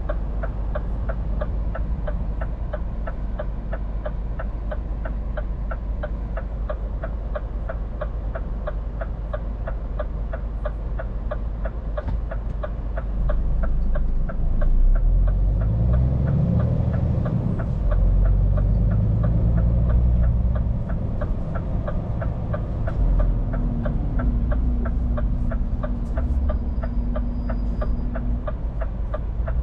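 Scania P410 truck heard from inside the cab: a turn-signal relay ticking evenly about three times a second over the diesel engine's low drone. About halfway through, the engine picks up and its pitch rises as the truck accelerates, then it runs on more steadily.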